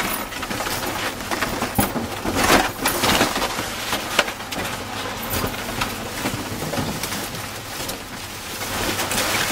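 Party balloons rustling and crinkling against each other and the car as they are pushed inside, an irregular crackle that is loudest about two and a half seconds in.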